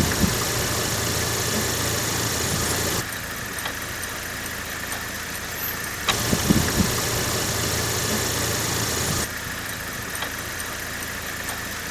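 Opel Vectra A running in first gear with a raised front wheel spinning, a worn front wheel hub bearing giving a steady low hum. The sound switches suddenly about every three seconds between a louder hum and a quieter one as the two front wheels are heard in turn, the louder being the side with the failing bearing.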